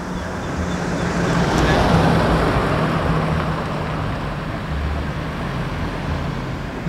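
Road traffic: a car passing close by on the street, its tyre and engine noise swelling to a peak about two seconds in and then easing, over a steady low hum.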